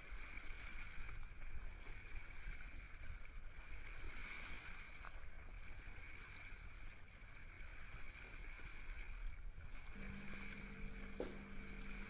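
Boat under way on open sea: a steady low rumble with water wash and a steady high hum. About ten seconds in, low sustained music notes come in.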